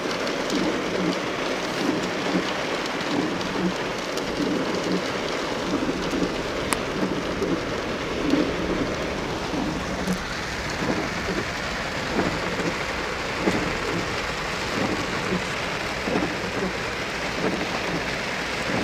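Heavy rain pouring down: a dense, steady hiss with constant splashing of drops on hard surfaces.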